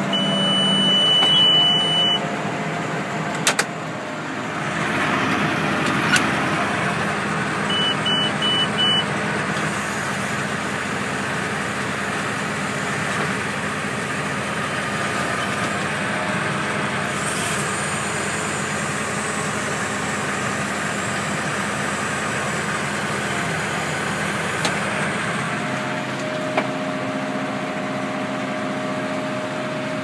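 John Deere 6630 tractor running steadily under load while pulling a John Deere 852 round baler, heard from inside the tractor cab. Short high electronic beeps sound near the start and again about eight seconds in.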